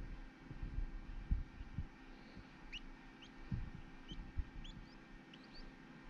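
A quail chick peeping, a string of short, high, rising peeps about two a second starting about three seconds in. Soft low thumps of the chick being handled in the palm come through the first half.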